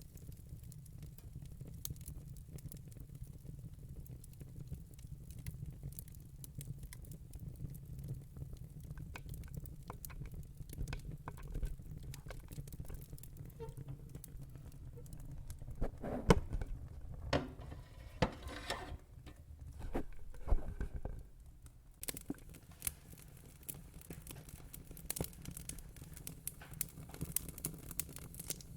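Fire crackling: scattered sharp pops and snaps over a low steady rumble, with a run of louder pops a little past the middle.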